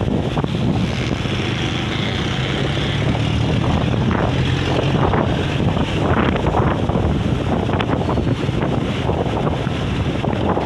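Strong sea wind buffeting the microphone in loud, uneven gusts, with surf underneath; a low steady hum runs through the middle of it.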